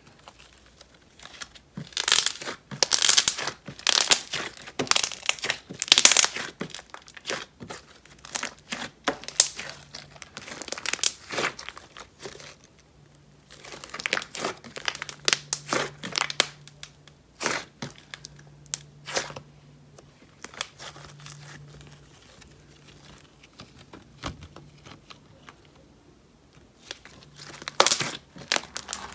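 Thick, glossy slime being squeezed and kneaded by hand, giving clusters of crackly bubble pops. The pops come thickest in the first half and again near the end, with a quieter stretch before that.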